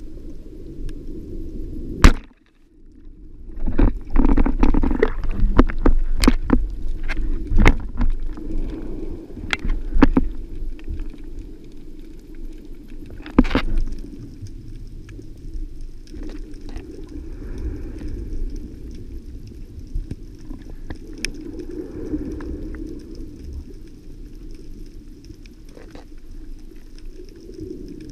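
Band-powered speargun fired underwater: one sharp, loud crack about two seconds in, followed by a run of irregular clacks and knocks and one more sharp click later, over a steady low underwater rush.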